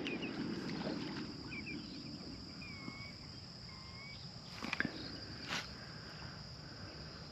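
Quiet marsh ambience: a steady high insect drone, a few short faint bird chirps in the first half, and two sharp clicks about five seconds in.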